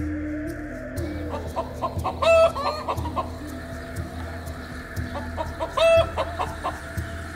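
Chicken clucking in two short bursts of quick calls, one about two seconds in and another around six seconds, each ending on a longer, louder note.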